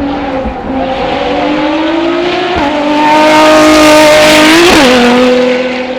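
A high-performance car engine accelerating hard, its pitch climbing and then dropping sharply twice, about two and a half and five seconds in. It is loudest in the second half as the car goes by.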